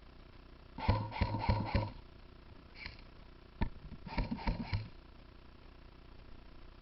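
An electric airsoft rifle firing in quick semi-automatic shots: a string of four shots about a second in, a single sharp click midway, then four more shots.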